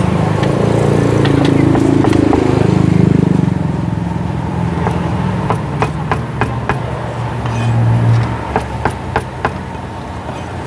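A cleaver chopping fried beef on a wooden chopping block: a quick series of sharp knocks in the second half, a few a second. Before that, a low engine rumble dominates.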